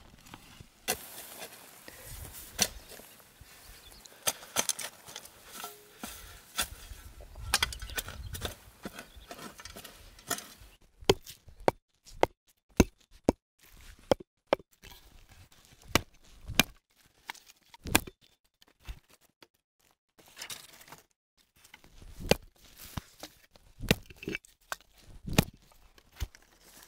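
A spade cutting into grassy turf, with the blade crunching and tearing through soil and roots, then a run of separate sharp knocks and snaps as clods of turf are lifted out by hand.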